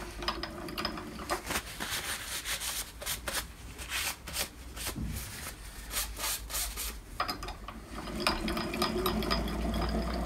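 Drill press table being cranked by its hand wheel along a ball screw: clicking and metal rubbing at first, then from about eight seconds a steadier running sound with fine ticks as the ball nut rolls along the screw and the table travels smoothly.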